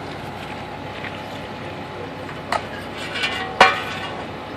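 Concrete mixer truck running steadily, with brief sharp sounds about two and a half and three and a half seconds in, the later one the loudest.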